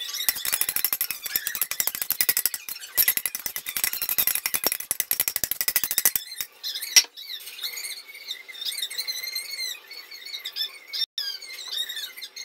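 Metal spoon scraping chocolate sauce out of a steel pot in quick, rapid strokes. About six seconds in, this gives way to a run of squeaks with wavering pitch as the spoon works the sauce in the glass dish.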